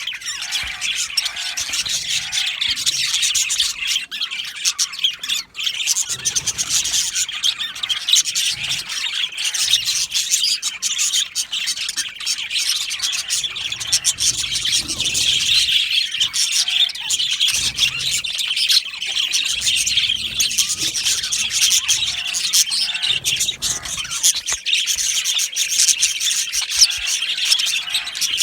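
A flock of budgerigars chirping and chattering together, many overlapping warbles, chirps and squawks in a dense, continuous chorus.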